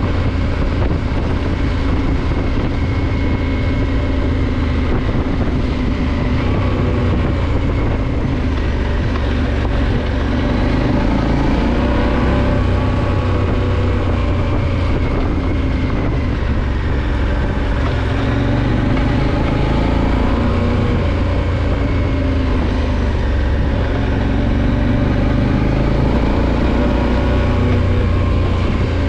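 Motorcycle engine running steadily while the bike is ridden over a dirt track, its pitch rising and falling a little with the throttle.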